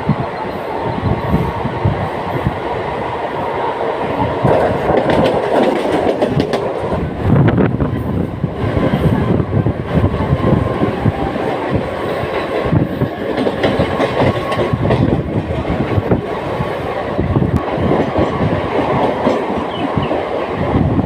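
Mumbai non-AC EMU local train running at speed, its wheels rumbling and clattering over the rail joints in a steady clickety-clack.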